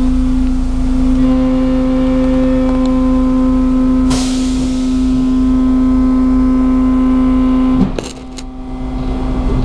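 Cabin sound of an unmodernised EN57 electric multiple unit starting off: a steady electrical hum with overtones, a brief hiss about four seconds in, then two sharp clicks just before eight seconds as the hum drops away, followed by a low rumble that starts to build as the unit begins to move.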